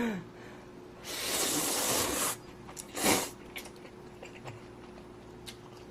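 A person's loud airy breath, a hiss lasting over a second from about a second in, then a shorter one about three seconds in.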